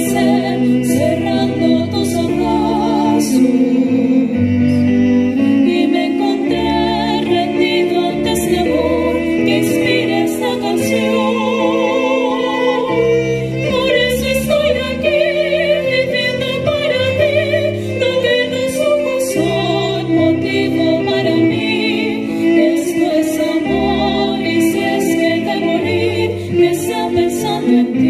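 Two women singing a song together, with vibrato on held notes, accompanied by violin and piano.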